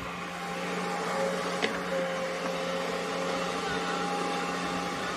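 Kobelco hydraulic excavator's diesel engine and hydraulics running steadily while digging: an even hum with a faint whine on top, and a single light click about a second and a half in.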